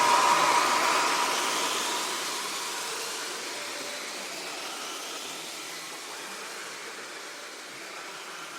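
Shortwave radio static: a hiss with faint sweeping tones and a steady whistle that stops about a second and a half in, the whole fading down gradually.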